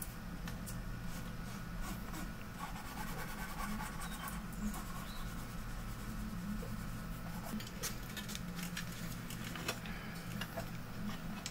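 Hands handling a monitor's circuit board and its metal chassis: scattered light clicks, taps and rubbing over a steady low hum.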